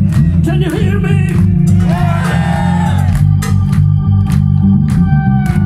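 Live band playing: drums keep a steady beat under bass, electric guitar and an organ sound from the stage keyboard.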